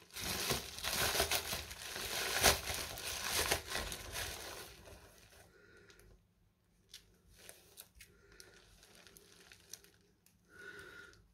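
Crinkly plastic packaging wrap being crumpled and torn open by hand, busy and fairly loud for about four and a half seconds, then dropping to faint occasional rustles and light taps as the item is handled.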